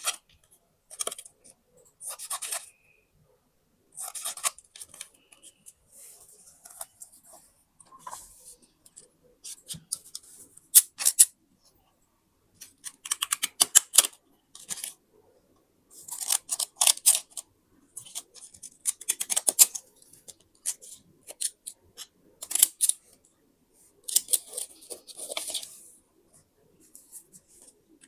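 Scissors cutting paper: short runs of quick crisp snips with silent pauses between them.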